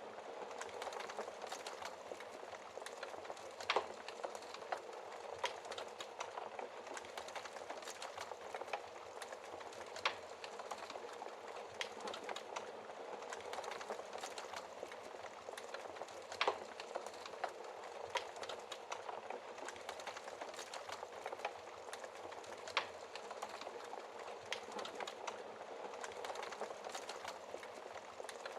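Wood fire crackling steadily with many small snaps, and a louder pop every few seconds, about four in all.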